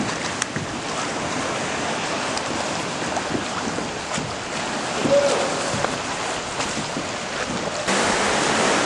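Ocean swell washing against the rocks of a sea-cliff cave entrance, a steady rushing water noise with wind on the microphone. The water noise gets louder about eight seconds in.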